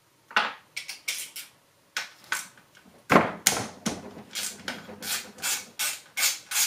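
Socket ratchet being swung back and forth to loosen a bolt on the transmission case: a run of short rasping ratchet strokes, about three a second and quickening towards the end. There is a heavier clunk about three seconds in.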